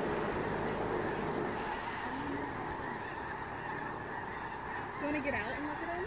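A huge flock of migrating birds calling overhead: many overlapping calls merge into a constant din, with a few nearer calls standing out now and then. A low hum underneath stops about a second in.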